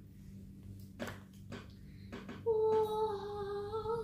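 A few soft clicks as slime and small tubs are handled, then about two and a half seconds in a young girl starts singing one long held note that rises slightly near the end.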